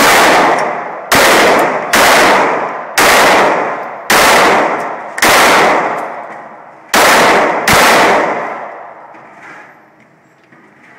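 Handgun fired eight times at an indoor range, shots roughly a second apart with a pause of nearly two seconds before the last two. Each loud shot rings out in a long echo off the range walls.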